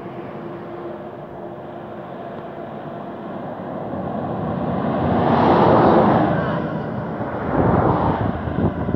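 A heavy truck approaching and passing close by on a highway, its engine and tyre noise swelling to a peak about six seconds in and then fading. A car passes about two seconds later with a shorter swell of tyre noise.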